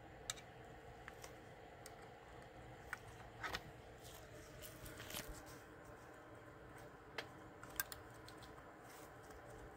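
Faint, sharp clicks, about seven of them spread out, with a quick double click about three and a half seconds in, as the restored 1967–68 Cadillac in-dash climate controller's levers and micro switches are worked by hand during a bench function test.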